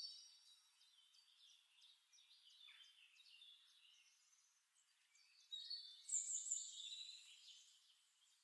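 Near silence with faint high-pitched chirps in the background, a little louder for a couple of seconds past the middle.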